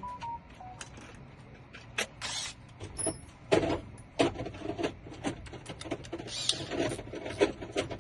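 Metal tools clicking and scraping in a mailbox lock whose keyway is jammed with a broken drill bit: irregular small clicks, with a few louder scraping bursts.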